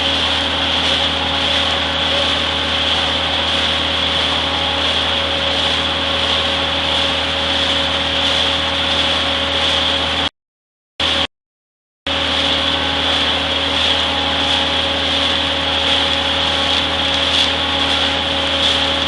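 Shotcrete spraying: a steady, loud hiss of compressed air and concrete from the nozzle over the even hum of the running machinery, breaking off twice for about a second near the middle.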